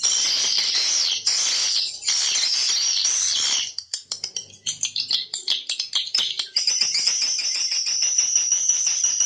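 Swiftlet lure call: dense, high twittering of edible-nest swiftlets. For a few seconds in the middle it breaks into rapid separate chirps and clicks, then the steady twitter returns.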